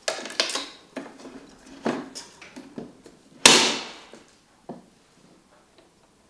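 Capsule coffee machine being handled: a run of hard plastic clacks and knocks, the loudest a sharp clack about three and a half seconds in as the top lever is pressed shut.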